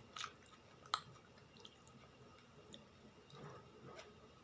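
Faint eating sounds: soft chewing with a few sharp clicks, the loudest about a second in.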